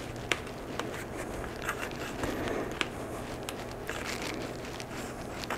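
Tire bead being worked onto a carbon road-bike rim by hand and with a tire lever, a tight fit: a steady low rustle of rubber against the rim with scattered small clicks and ticks.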